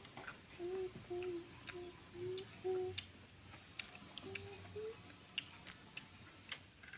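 A person humming a short tune in brief, level notes, five in a row, then two more a little over a second later, with faint clicks and taps of eating by hand from plates.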